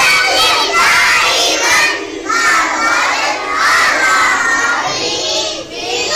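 A group of children chanting loudly in unison, in phrases about a second long with brief breaks between them.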